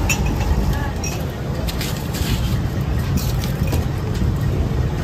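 Busy street ambience: a steady low traffic rumble with voices in the background, and a few short bright clinks of glasses and ice being handled on a steel counter.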